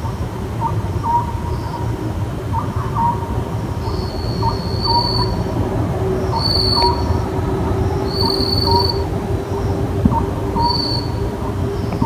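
Oriental scops owl calling its two-note 'sot-jjuk' call, repeated about every two seconds. Under it runs a steady low rumble, a hum joins about five seconds in, and from about four seconds short high-pitched tones sound about every two seconds.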